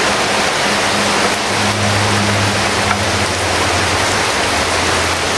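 Heavy rain falling, a loud steady hiss, with a low hum joining in about a second and a half in.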